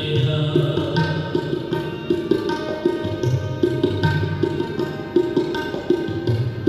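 Background devotional music in the style of Sikh shabad kirtan: a tabla keeping a steady rhythm, with bending low bass-drum notes, over sustained held tones.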